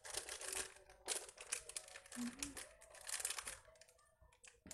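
Plastic packet of Energen cereal-drink powder crinkling as it is handled, in irregular spurts that die down near the end.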